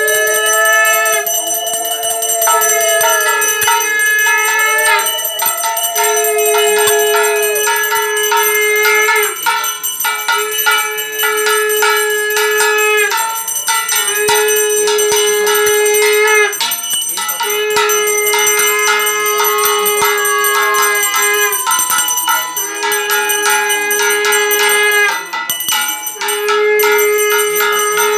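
Conch shell (shankha) blown in a series of long held blasts of two to three seconds each with short breaks between, over a hand bell ringing continuously: the conch-and-bell sound of a Hindu puja aarti.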